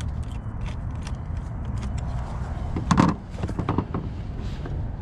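Air intake duct being worked loose from the throttle body by hand: small plastic and rubber clicks and scrapes, with a loud knock about three seconds in followed by a quick run of clicks, over a steady low rumble.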